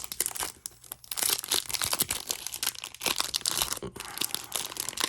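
Plastic wrapper of a basketball trading-card pack being torn open and crinkled by hand, a dense crackling with short lulls about a second in and near four seconds. The wrapper is hard to tear open.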